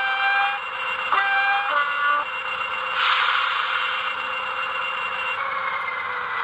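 Digitrax SFX sound decoder in a Lima class 20 model locomotive, through its small onboard speaker, playing a two-tone diesel horn twice in the first two seconds, then a burst of air hiss about three seconds in, over a steady synthesised engine sound.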